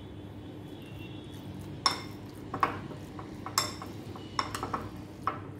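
A metal spoon clinking against a cut-glass bowl while stirring raw chicken pieces in their marinade: a run of sharp, irregular clinks starting about two seconds in.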